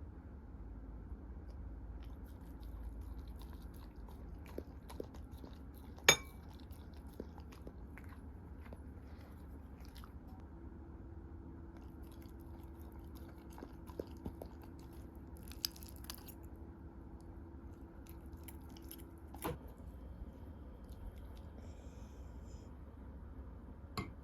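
A Jindo dog chewing and biting food, with scattered small clicks and a sharp knock about six seconds in.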